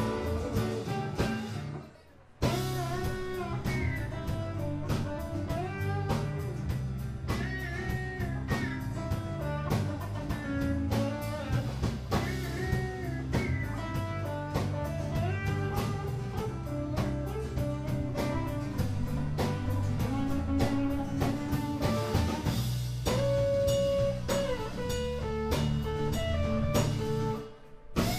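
Live band playing: electric bass, electric and acoustic guitars and drum kit together. The music cuts out briefly about two seconds in and again near the end.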